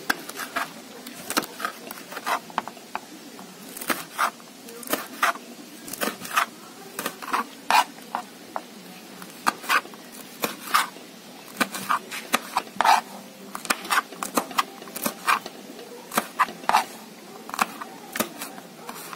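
Kitchen knife slicing green chillies on a plastic cutting board: sharp, uneven taps of the blade striking the board, about two a second.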